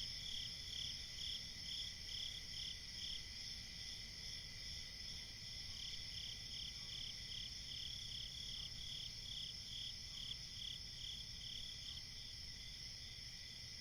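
Crickets chirping at night: a continuous high trilling chorus, with one cricket chirping in a steady rhythm about twice a second that stops for a couple of seconds a few seconds in, then resumes.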